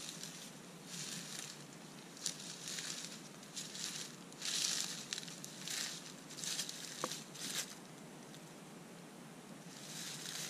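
Irregular crunching footsteps through dry fallen leaves, in uneven bursts.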